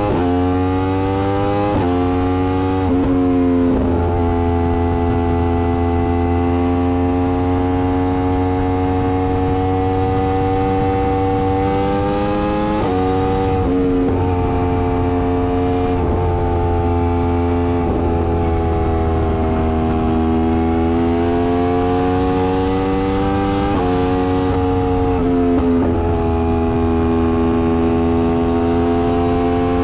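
Yamaha R1's inline-four engine pulling hard at motorway speed, its pitch climbing and then stepping sharply down in quick, uninterrupted quickshifter upshifts: a couple in the first few seconds, two around the middle, and more near the end. A steady low wind rumble runs underneath.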